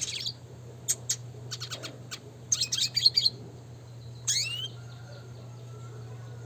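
Red siskin singing: sharp high chirps and a quick run of notes through the first three seconds, then a single rising note just past four seconds in. A low steady hum lies underneath.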